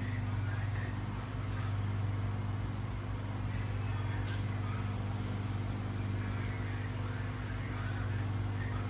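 Steady low mechanical or electrical hum, with a single sharp click a little over four seconds in.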